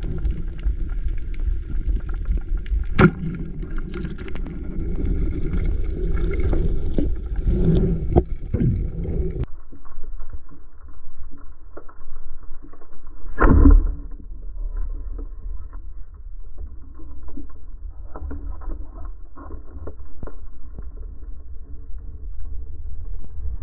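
Underwater sound through an action camera's housing: a low rumble with scattered small clicks and knocks, and a higher hiss that cuts off suddenly about nine seconds in. About thirteen and a half seconds in there is one loud short thump, the wooden band-powered speargun firing its shaft.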